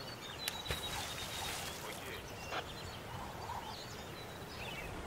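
Outdoor ambience with birds chirping over a steady background hiss. There are two sharp clicks about half a second in and another about two and a half seconds in.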